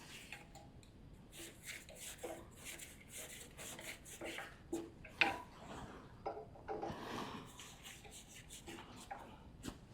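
Faint rubbing and scattered light clicks and taps of small regulator parts and rubber seal material being handled.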